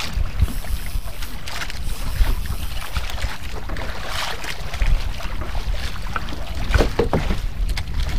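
Steady wind rumble on the microphone over water sloshing around a small outrigger fishing boat, with a few short knocks from handling the rod and line.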